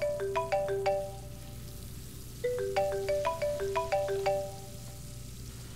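A smartphone ringing for an incoming call: a short ringtone melody of quick marimba-like notes, rising then falling. The phrase finishes about a second in and plays once more after a pause.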